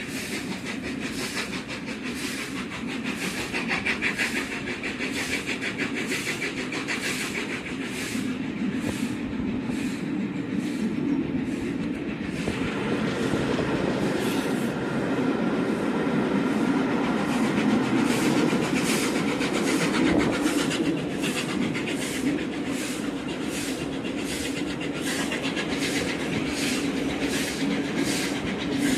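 Steam-hauled train running at speed, heard from the coach behind Tornado, a Peppercorn A1 Pacific: a steady rumble of wheels on rail with a regular beat about twice a second. The rumble grows fuller and louder from about halfway through.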